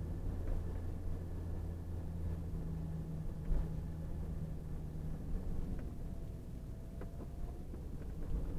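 A car's engine and tyre noise heard inside the cabin while driving: a steady low drone, and its upper hum drops away about five seconds in.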